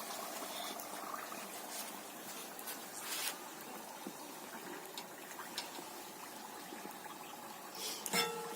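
Faint background music over a low steady hiss, with a few light clicks.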